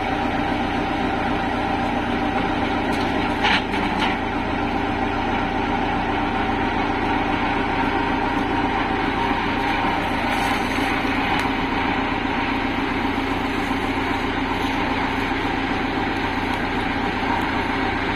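Komatsu mini excavator's diesel engine running steadily while the arm and bucket are worked, with one brief clank about three and a half seconds in.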